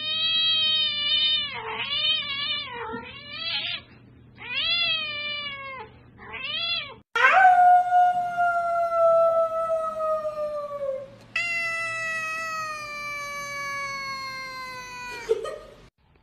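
Cats meowing: first a quick run of short, wavering yowls that bend up and down in pitch. Then come two long drawn-out meows, each slowly falling in pitch.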